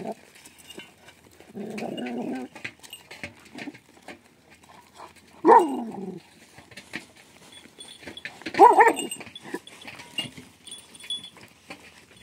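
A dog barking in three short bouts several seconds apart, the later two loudest.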